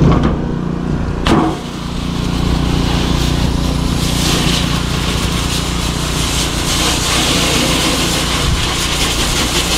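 Pressure washer running steadily, its water jet hissing against the inside of a wheelbarrow tub, the spray louder from about four seconds in. A single knock about a second in.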